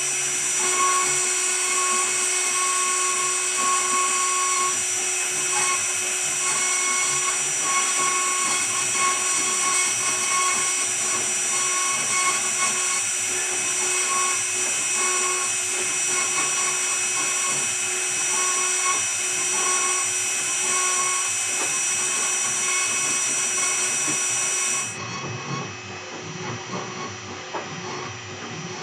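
CNC router's 2.2 kW air-cooled spindle running at speed while V-carving, a steady high whine. A shorter tone comes and goes about once a second as the machine moves. About 25 seconds in, the sound drops suddenly and becomes quieter.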